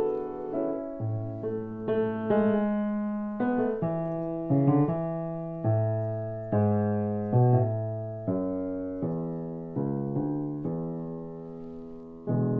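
Fully restored 1974 Bechstein Model L grand piano being played: a slow passage of chords and melody notes, each struck and left ringing as it dies away. It grows softer toward the end, then a louder chord is struck near the close.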